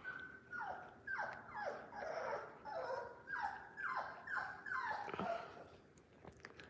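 A one-month-old red Labrador retriever puppy whining: a string of about ten short, high cries, each falling in pitch, about two a second, stopping about five and a half seconds in.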